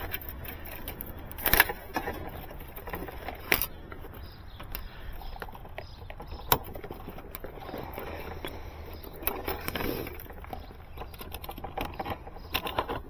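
Hands working cable and fiberglass rods into a fiber-optic house box: scattered sharp clicks and knocks, the strongest about a second and a half in and again near three and a half seconds, with rustling handling noise between, over a steady low rumble.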